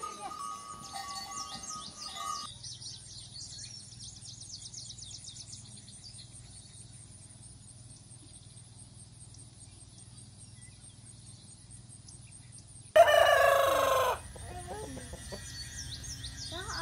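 A rooster crows once, loudly, about thirteen seconds in, the call lasting about a second; hens cluck around it afterwards. Before the crow, only faint chirps and ticking are heard.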